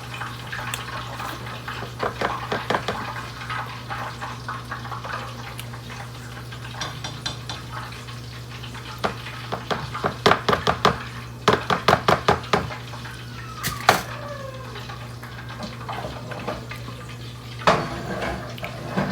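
Kitchen utensils and dishes clinking and clattering while frying ice cream, with a run of quick knocks about ten to thirteen seconds in, over a steady low hum.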